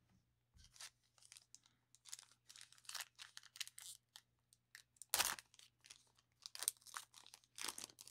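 Plastic wrapper of a Panini Prizm trading-card pack being torn open and crinkled by hand: a run of irregular crackling rips, the loudest a little past halfway.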